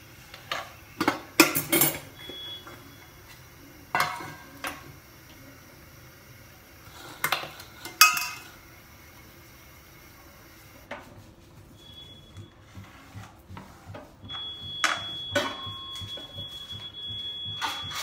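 Steel bowls and utensils clattering and knocking on a kitchen counter in a few separate bursts. In the last few seconds a steady high electronic tone comes in and holds, with light clicks over it.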